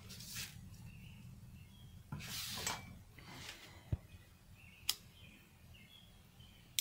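Quiet outdoor background with faint, short bird chirps. A soft rush of noise comes about two seconds in, and a few sharp clicks follow later, one near the end.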